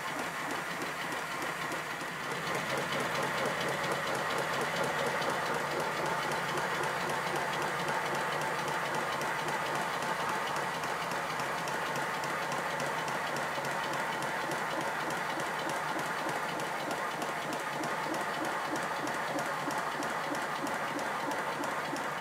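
5-inch gauge model of the locomotive Lion running on a rolling road on compressed air: quick, even exhaust beats from the cylinders with mechanical clatter from the motion. It grows louder about two seconds in, then holds steady.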